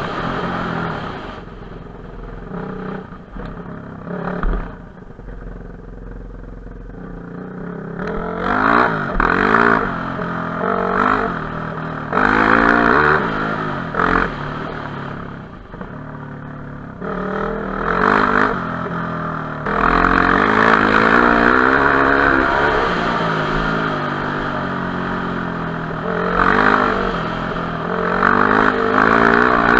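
Enduro motorcycle engine being ridden off-road, its pitch rising and falling again and again as the throttle is opened and closed, quieter for a few seconds near the start.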